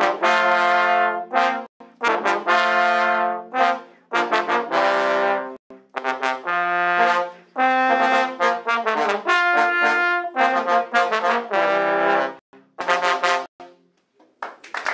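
Several trombones playing together in harmony, holding chords in short phrases separated by brief breaks. The music stops near the end.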